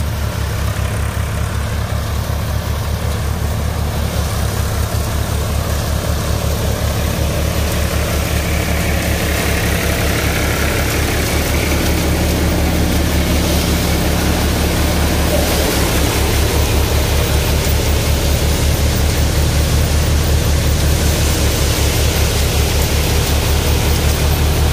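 Powertrac Euro 50 tractor's diesel engine running steadily under load, driving a paddy thresher through its PTO shaft, with the thresher drum running. A steady low, evenly pulsing hum with a noisy whir above it.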